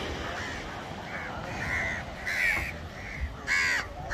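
Crows cawing repeatedly in a series of short calls, the loudest about two and a half and three and a half seconds in.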